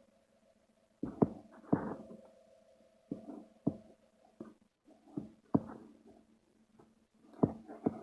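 Combination crimping and wire-stripping pliers being worked by hand: a series of sharp clicks and clacks at irregular intervals, over a faint steady hum.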